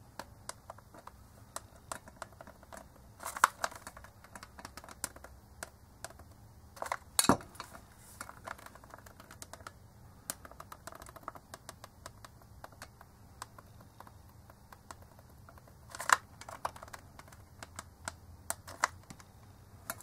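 Scattered light clicks and taps of hands working a hot glue gun around a compression-driver speaker unit, with a few louder knocks about three and a half, seven and sixteen seconds in.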